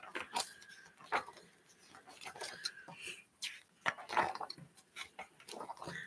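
Pages of a spiral-bound book being turned one after another: a string of short paper rustles and flaps at an uneven pace.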